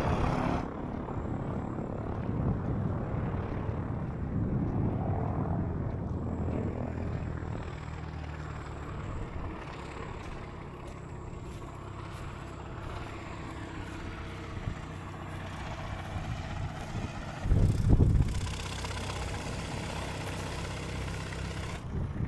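A steady engine drone with a low hum. A short, loud, low burst comes about three-quarters of the way through.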